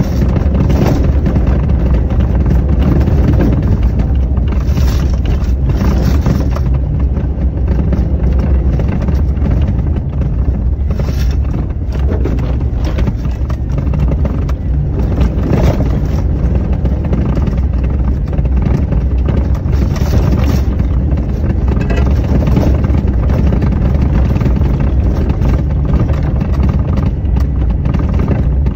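Vehicle driving slowly on a gravel road, heard from inside the cab: a steady low rumble of engine and tyres on gravel, with a few brief sharper crunches or knocks along the way.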